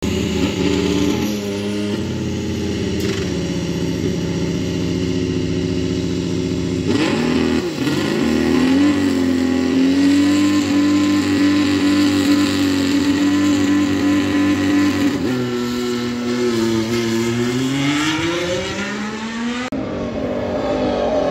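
Ferrari SF-21 Formula One car's turbocharged V6 running on track. The engine note shifts in pitch a couple of times, holds steady for several seconds, then climbs steadily as the car accelerates. Near the end it cuts abruptly to a different, falling engine note.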